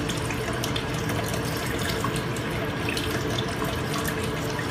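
Water running steadily through a blue bowl gold concentrator, swirling around the bowl and draining out its centre hole.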